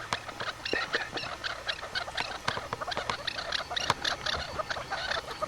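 Many small birds chirping in a dense, rapid chatter of short high notes.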